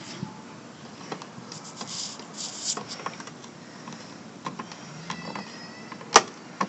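A dog chewing on something: irregular small clicks and crunchy, hissy scrapes, with one sharper click near the end.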